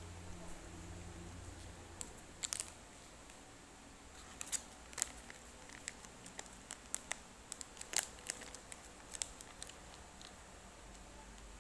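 Plastic snack wrapper crackling and crinkling in short, irregular clicks as it is handled and torn open.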